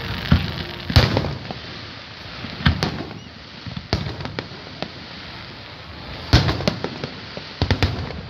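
Fireworks display: aerial shells bursting in a string of sharp bangs, the loudest about a second in and after six seconds, with a quick run of crackling reports near the end, over a steady murmur of the crowd.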